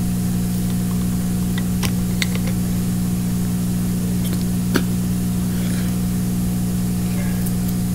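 Steady low electrical or machine hum with several overtones, unchanging throughout, with a few faint clicks and taps.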